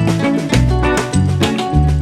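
Background music with a steady beat, strong bass notes and plucked strings in a Latin, salsa-like style.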